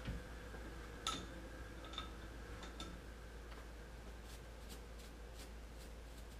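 Faint, scattered metallic clicks and taps from handling a metal lathe's chuck and workpiece, over a low steady hum.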